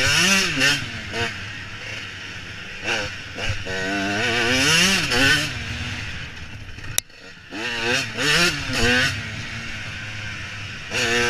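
Dirt bike engine heard from the rider's helmet, revving up and easing off over and over as it accelerates and shifts along the trail. About seven seconds in there is a sharp click and the engine note drops out for a moment before it picks up again.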